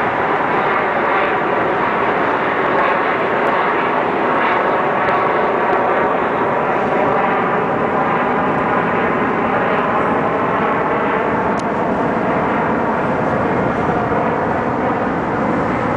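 Steady, loud engine drone with no breaks and no change in level.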